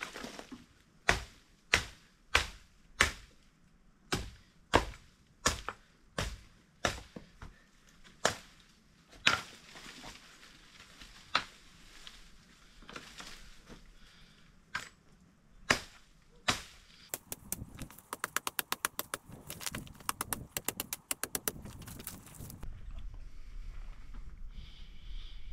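A series of sharp knocks, at first regular at about three every two seconds, then sparser. Three-quarters of the way in comes a fast run of clicks, about ten a second, for four or five seconds.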